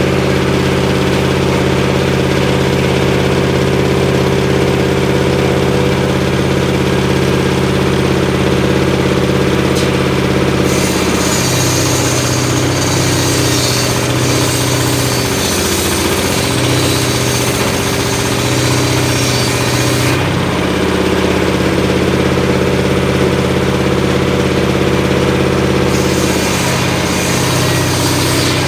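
Homemade engine-driven circular saw running steadily, then ripping through mahogany. A long cut starts about a third of the way in and lasts some nine seconds, with a shorter cut near the end. During each cut the saw adds a high hiss and the engine's note wavers and sags under the load.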